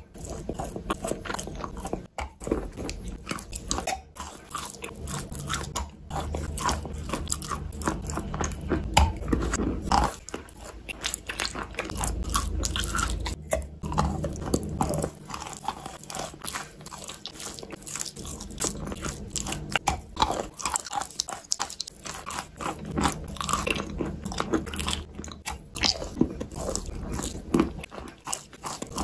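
Biting and chewing a lump of Lerkin chalk coated in wet clay paste: many crisp crunches in quick succession as the chalk breaks between the teeth.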